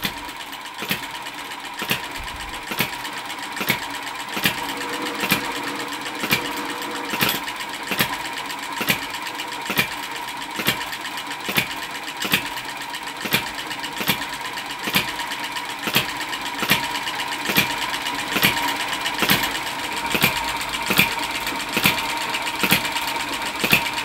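Model vertical hit-and-miss engine running and belt-driving a gear reduction unit, model windmill and pump: evenly spaced sharp clicks over a steady whine. The windmill grinds a bit for want of oil.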